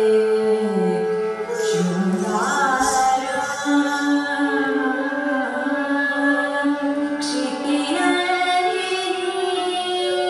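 Recorded Carnatic music accompanying a Bharatanatyam dance: a steady drone under a sung melody that glides up about two seconds in and then holds.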